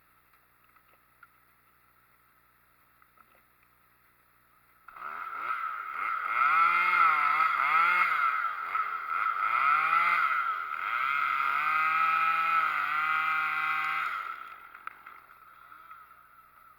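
Chainsaw engine starting up about five seconds in and running at high revs. Its pitch dips and recovers several times, as if the throttle is being worked or the saw is loaded in a cut, then it holds steady before cutting off near the end.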